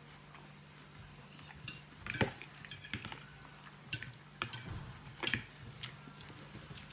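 Cutlery clinking and scraping against a dish during a meal: short, sharp, irregular clicks, loudest a little over two seconds in.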